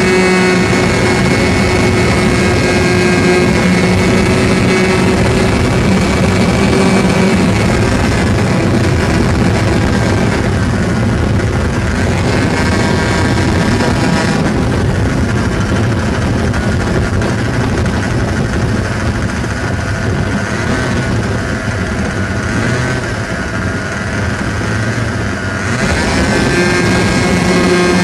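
O.S. 61SF two-stroke glow engine of a model airplane running at high speed in flight, picked up close by an onboard camera. Its pitch wavers and dips through the middle, it is briefly a little quieter about two-thirds of the way in, and it is steady and high again near the end.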